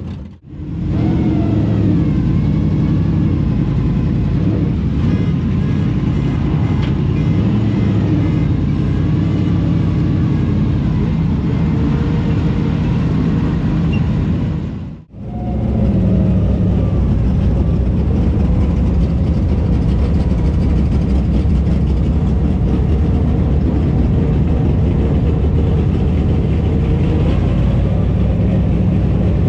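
Late model race car engines running at speed on the track, a loud steady drone whose pitch rises and falls as the cars go around. The sound breaks off abruptly for a moment near the start and again halfway through.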